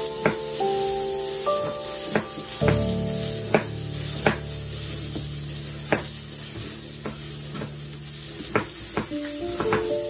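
Chef's knife chopping young jackfruit on a wooden cutting board: sharp, irregular knocks of the blade hitting the board, roughly one every second or so, over soft background music with held notes.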